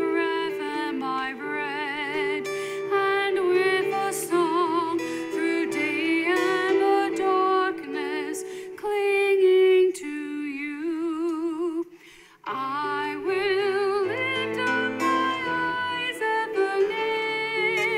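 Sung hymn: a voice with vibrato carrying the melody over instrumental accompaniment, with a brief pause about twelve seconds in before the singing picks up again.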